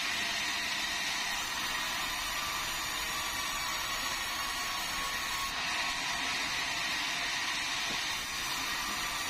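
Sawmill vertical band saw running and ripping a meranti timber beam: a steady, even noise of the blade cutting, with a faint constant high tone.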